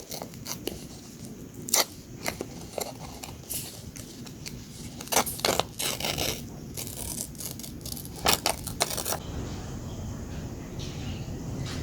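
Paper and craft materials handled close to the microphone: rustling and crinkling with scattered sharp taps and clicks, busiest around the middle.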